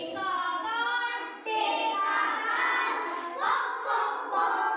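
A class of young schoolchildren singing an English poem together in unison, with a short break about a second and a half in before the next phrase.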